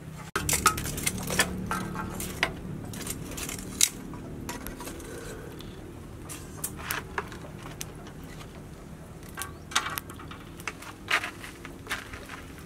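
Light metallic clinks and knocks, irregular and scattered, as a wire grill rack is handled and set on a clay charcoal stove.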